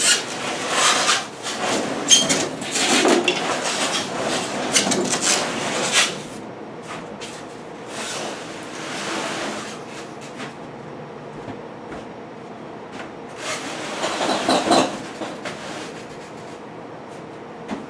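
Irregular rubbing, scraping and knocking handling noises, busy for the first six seconds, then quieter, with another short burst about fourteen seconds in.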